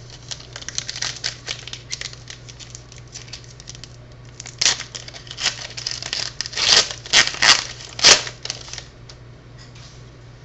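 Trading cards being handled close to the microphone: quick light clicks of cards sliding and flipping, then several louder rustles in the middle.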